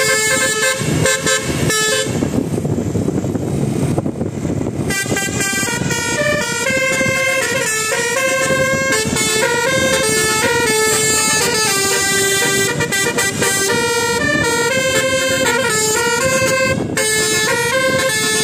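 Bus telolet horn, a Basuri-type multi-tone horn, playing a fast stepping melody of held notes. About two seconds in the melody breaks off for roughly three seconds, leaving only a noisy rumble, then starts again.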